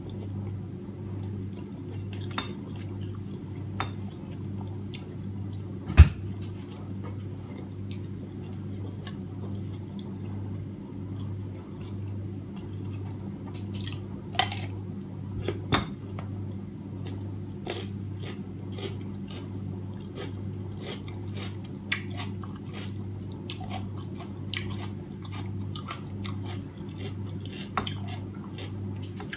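Close-up eating sounds: wet chewing and lip clicks as steamed fish is picked apart by hand and eaten, with two crunchy bites of a whole raw cucumber about halfway through. A single sharp knock about six seconds in; a steady low hum underneath.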